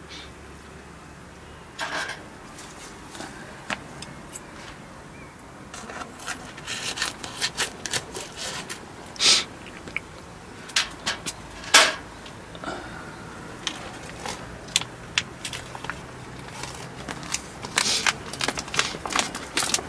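Plastic food packets being handled and opened: crinkling and rustling with many small sharp crackles, two of them louder near the middle.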